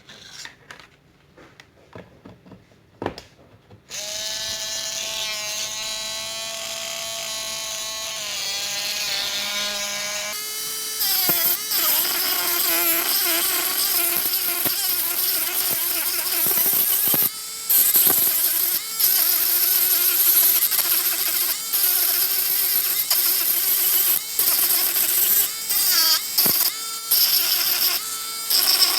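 A mini electric polishing machine switches on a few seconds in and runs free with a steady whine. From about halfway its pitch drops and a loud gritty hiss joins it as it sands rough body filler on a model car, with several short breaks.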